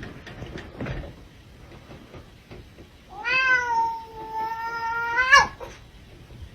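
Domestic cat giving one long meow of about two seconds, rising at the start, held steady, then bending up at the end. A few faint knocks come before it.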